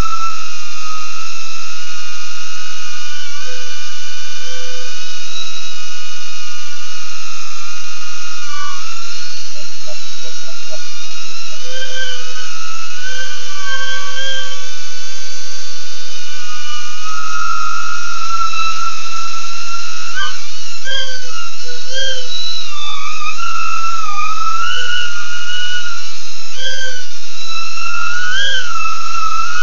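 Whine of the BetaFPV Aquila16 FPV drone's small electric motors, several close pitches running together and rising and falling with throttle changes, wavering more often in the second half.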